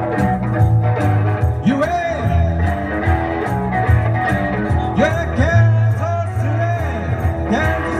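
A live jazz-fusion band playing: electric guitar and bass guitar over a steady tabla rhythm, with notes that glide and bend in pitch.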